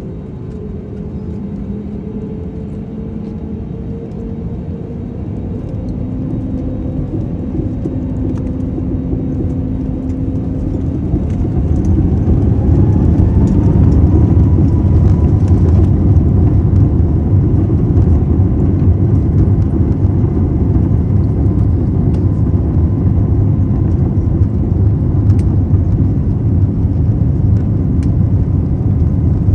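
Airbus A320neo's turbofan engines spooling up to takeoff thrust, heard inside the cabin: a low rumble and a whine that rise in pitch and grow louder over about ten seconds, then hold steady and loud.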